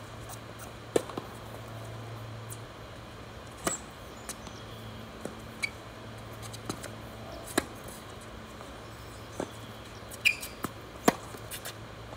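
Tennis ball struck by rackets and bouncing on a hard court during rallies: sharp pops at irregular gaps of a second or more, the loudest about a second in and near the end.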